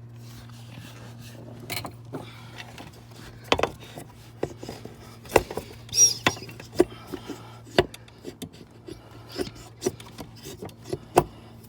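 Irregular clicks, knocks and rubbing as a replacement air bag is worked by hand into a truck seat's suspension, over a steady low hum.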